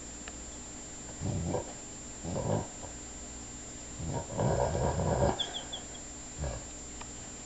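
A sleeping dog snoring: two short snores, then a longer one about four seconds in, and a brief one near the end.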